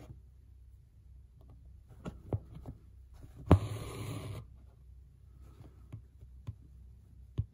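Hand-embroidery handling sounds from a wooden hoop and the hat fabric. Light taps come about two seconds in, then a sharper knock about three and a half seconds in, followed by about a second of fabric rustling as the work is shifted and stitched. A few faint ticks follow near the end.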